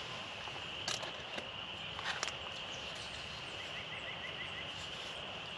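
A steady high-pitched chorus of small calling animals in the woods, with a short run of quick chirps a little past the middle. A few light clicks and knocks of camp cookware being handled sound about one and two seconds in.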